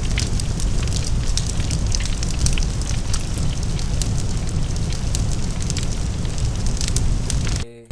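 Large fire burning: a heavy, steady low rumble with many scattered crackles and pops. The sound cuts out briefly near the end.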